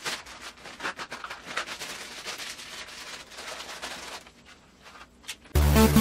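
Crackling, crinkling rustle of a plastic Doritos bag being handled and hung onto a wall rack, for about four seconds. Near the end, loud electronic dance music with a steady beat starts suddenly.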